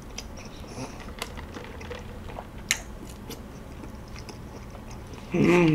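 Quiet mouth sounds of sipping iced Americano through a straw, with scattered soft clicks and one sharper click about two and a half seconds in. A short hummed voice sound comes near the end.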